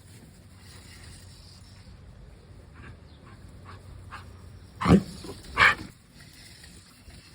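A dog barking twice about five seconds in, two short loud barks well under a second apart, after a few faint soft sounds.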